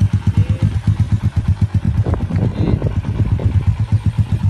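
Honda Megapro Primus single-cylinder four-stroke engine idling through a chrome aftermarket silencer: a steady, even run of about seven exhaust pulses a second.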